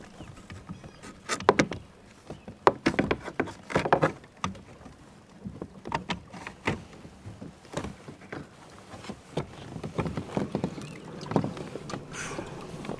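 Irregular knocks and clatter of a plastic fish-measuring board and gear against the kayak's hull as a freshly caught bass is handled and measured. The knocks are loudest and most frequent in the first few seconds, then sparser and softer.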